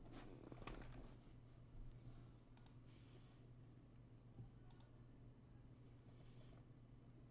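Near silence: a low steady hum with a few faint clicks of someone working a computer. There is a small cluster in the first second, then single clicks about two and a half and five seconds in.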